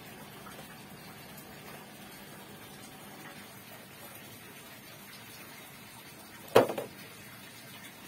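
A single sharp knock about two-thirds of the way through, over faint steady background noise.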